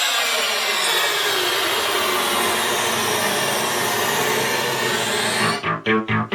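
Electronic music played through NHT C-3 three-way speakers: a loud synthesized noise sweep with a tone gliding steadily downward, then a pulsing synth beat comes in near the end.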